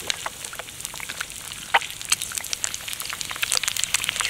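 An egg frying in hot oil in a pan over a campfire: a steady sizzle with many irregular pops and spits of fat.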